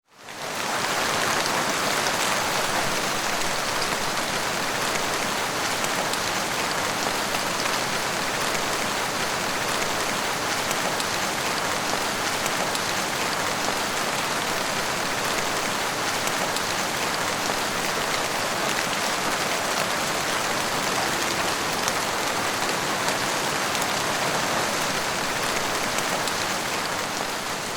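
Heavy rain falling steadily, a dense hiss of drops pattering on surfaces. It fades in over the first second.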